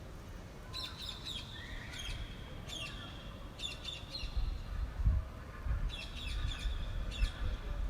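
Small birds chirping in quick clusters of short, sharp, high notes, repeating every second or so. Wind buffets the microphone as a low, gusty rumble that builds from about halfway through.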